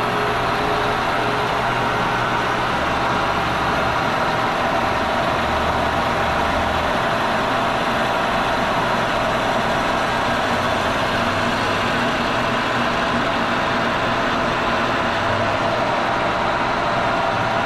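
Kearney & Trecker milling machine running steadily while its Tungaloy carbide facemill takes a light skim cut across a cast iron fixture plate.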